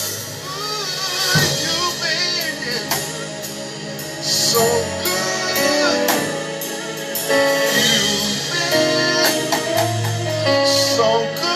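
Gospel worship music: singing over instruments, with a drum kit keeping time.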